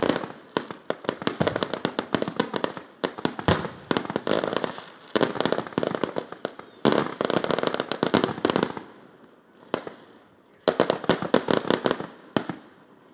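Aerial fireworks going off in rapid volleys of crackling bangs and pops. The barrage lets up for about a second and a half near the end, then another dense volley follows.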